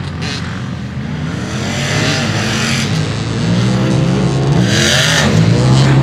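Side-by-side UTV engine revving hard on a dirt track, its pitch rising and falling with the throttle and growing louder as it approaches. A brief rushing hiss comes about five seconds in.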